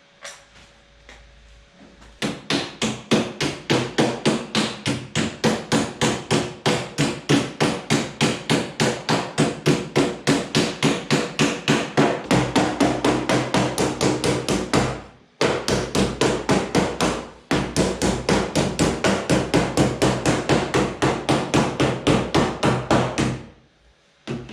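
Hammer striking sheet-metal body panel in a steady rapid rhythm, about three to four blows a second, folding a flange over on the Land Rover Discovery 1 panel. The panel rings with each blow. The blows start about two seconds in, pause twice briefly in the middle, and stop just before the end.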